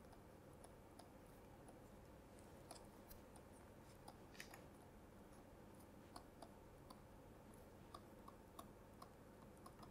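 Near silence, with faint, scattered ticks of a stylus writing on a tablet.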